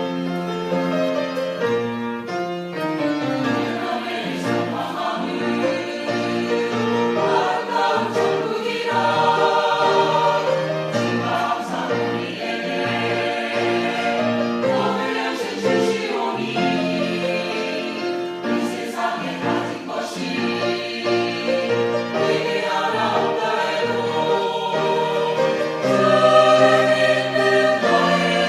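Church choir singing a sacred anthem in Korean, with sustained voices in several parts.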